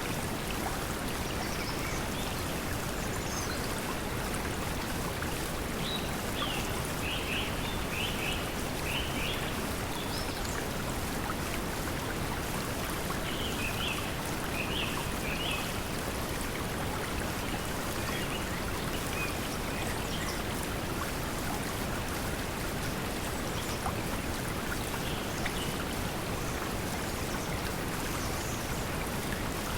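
Steady pink noise mixed with flowing water, running evenly throughout. Short high chirps from forest birds come in a few brief clusters over it.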